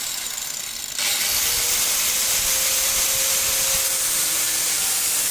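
Angle grinder cutting through a phone's metal frame: a loud, steady hiss of disc on metal. It jumps louder about a second in.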